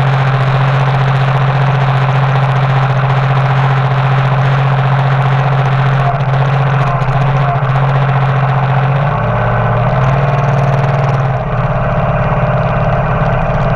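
Front-loader tractor's engine running steadily, heard close up from the hood as the tractor drives. Its pitch drops about nine seconds in and changes again a second or two later.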